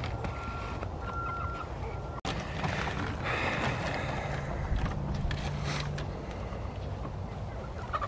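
Chickens clucking around a coop, with rustling and crinkling as a plastic feed bag is handled. A faint on-off high beep sounds during the first two seconds.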